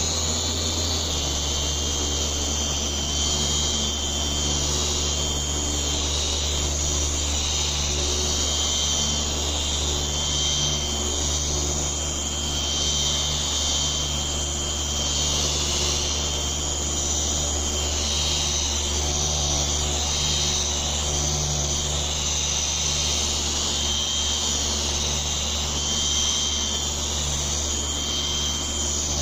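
Electric car polisher running steadily with a constant hum and whine, buffing compound over freshly wet-sanded paint to remove the sanding marks.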